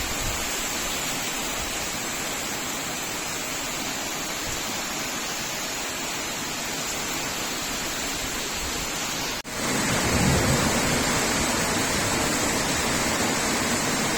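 Heavy rain pouring down in a steady, dense hiss. About nine seconds in it cuts out for an instant and comes back louder and fuller.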